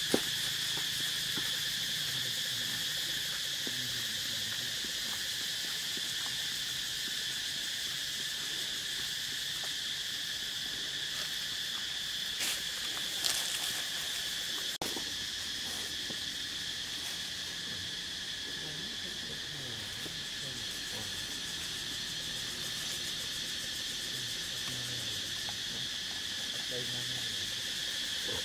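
Steady, high-pitched insect chorus droning without a break, with a few brief rustles near the middle.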